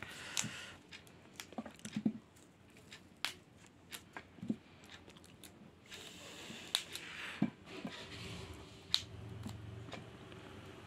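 Raw cauliflower being broken and cut into florets by hand with a knife: scattered crisp snaps and crunches as the stalks split.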